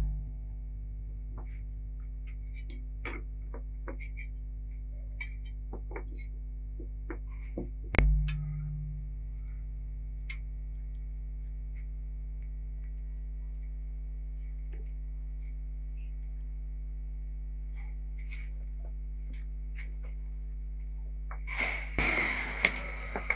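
Steady electrical mains hum with a buzzy edge. Over it come light scattered clinks of serving tongs against plates and a steel saj pan, a sharp knock at the start and another about eight seconds in, and a burst of clattering near the end.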